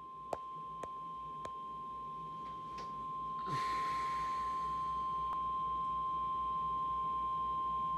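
The Emergency Alert System's 1050 Hz warning alarm tone, a single steady high-pitched tone that signals a severe thunderstorm warning is about to be read. Three sharp clicks sound in the first second and a half, and a hiss of radio static comes up about three and a half seconds in.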